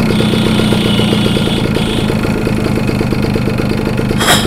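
Suzuki Samurai's single-cylinder two-stroke engine running steadily with a rapid even beat, while engine oil is fed into its carburettor intake to lubricate an engine that was run dry on petrol without two-stroke oil. A thin high whine sounds for the first couple of seconds, and there is one sharp click near the end.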